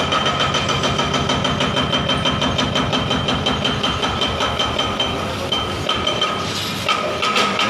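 Hitachi hydraulic excavator running hard as it works its demolition grapple, a fast, even pulsing throb with a steady whine over it, and a couple of louder noisy bursts near the end.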